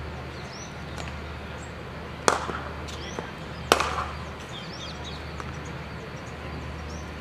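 Two sharp cracks of a cricket bat striking the ball, about a second and a half apart, with faint bird chirps in the background.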